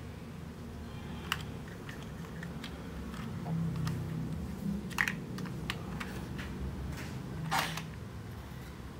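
Hard plastic toy excavator parts clicking and knocking as the arm and bucket are moved by hand: a handful of scattered sharp clicks, the loudest about five seconds in and a slightly longer clatter near the end. A steady low hum runs underneath.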